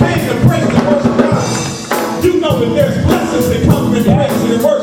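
Live gospel praise music: a drum kit keeping a steady beat under singing voices, with a brief drop in level a little before the middle.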